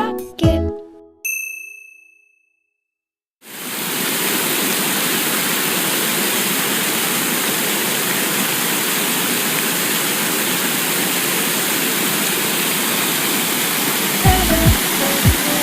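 A single bell-like ding rings and fades, then after a second of silence a steady rushing noise, like pouring water, starts abruptly and keeps on evenly. Music with a beat comes in over it near the end.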